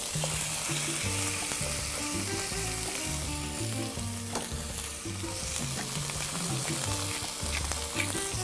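Beef shank (osso buco) searing in hot oil in a skillet: a steady sizzle as the raw meat is browned on a very hot surface. Soft background music with a low bass line plays underneath.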